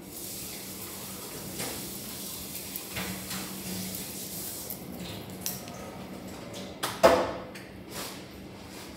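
Hair-cutting scissors snipping through a man's hair in short, separate cuts, with a louder knock or clatter near the end.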